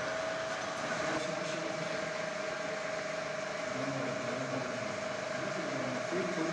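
Pillar drill press running with a steady motor whine while its bit is fed down into a workpiece clamped in a machine vice.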